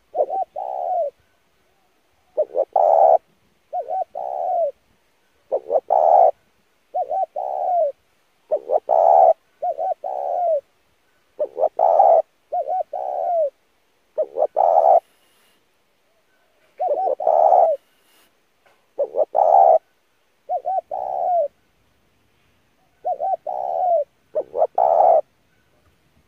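Spotted dove cooing in a run of short phrases of a few coo notes each, one phrase every second or two, with a pause of about two seconds midway.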